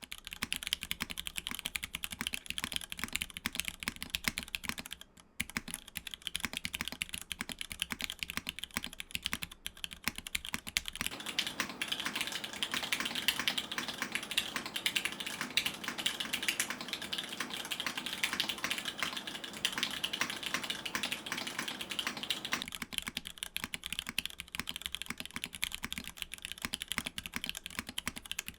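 Mechanical keyboard with an aluminium plate and unlubed Cherry MX2A Black linear switches (Hand Engineering 2000mini SE) being typed on: a continuous stream of keystroke clacks. The typing grows denser and louder from about 11 to 23 seconds in, with brief pauses near 5 and 10 seconds.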